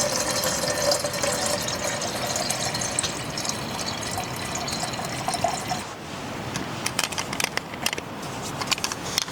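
Liquid poured steadily into a container for about six seconds, the pitch of the pour rising slightly as it fills, then stopping. A run of light clicks and knocks follows.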